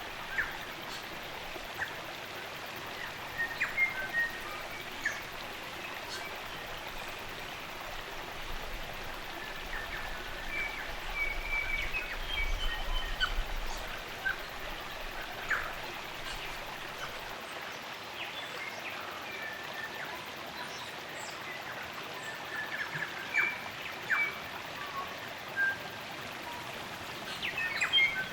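Steady rush of a spring-fed stream's running water, with short chirps and call notes from several forest birds scattered throughout.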